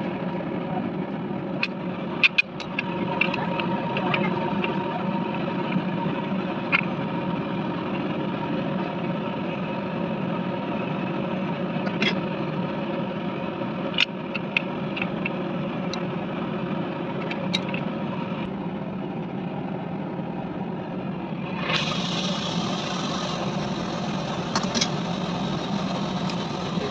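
A steady machine hum with scattered sharp clicks and taps.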